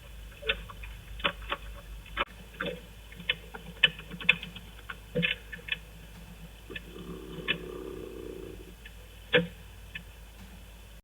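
A roosting chicken snoring: one low buzzing breath about two seconds long, past the middle. Scattered sharp clicks and ticks, louder than the snore, come and go throughout.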